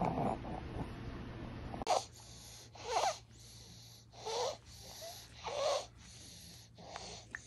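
A child's noisy, obstructed breathing, the kind of abnormal airway noise (snoring or stridor) that signals a narrowed airway. A rougher continuous recording cuts off about two seconds in. Then five separate harsh breaths follow, roughly one every second and a quarter.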